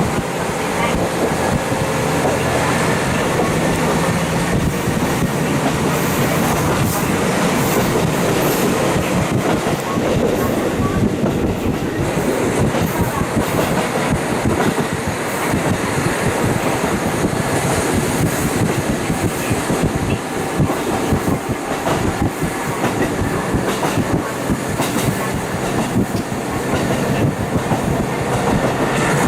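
KiHa 40 diesel railcar running along the line, heard through a fully open window: steady rumble of the train with wheels clicking over rail joints again and again.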